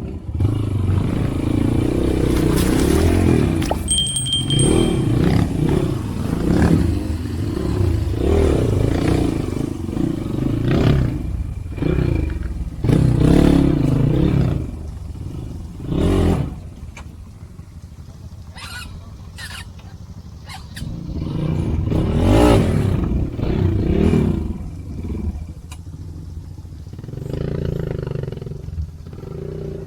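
Motorcycle engine running under changing throttle, revving up and dropping back again and again, with knocks and clatter; it runs quieter for a few seconds past the middle.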